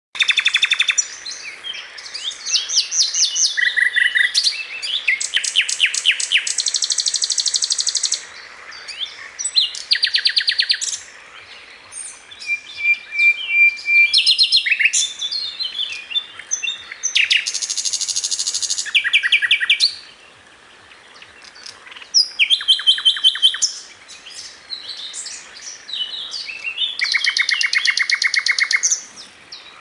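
A bird calling in repeated bursts of rapid, sharp rattling notes that sound like gunfire, each burst lasting a second or two, with varied chirps between them.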